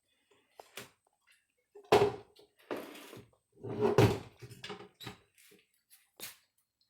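Kitchen handling noises: a series of knocks and clunks, with two louder thunks about two and four seconds in.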